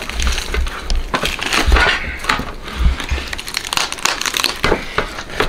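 Whole roasted turkey being torn apart by hand: crisp, charred skin and meat ripping with irregular crackles and crunches, and a few dull thumps.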